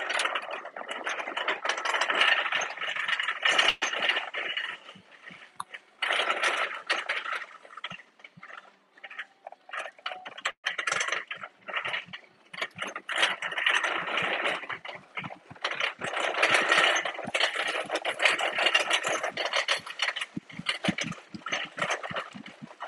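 Shopping cart rattling as it is pushed across a tiled store floor, stopping and starting several times.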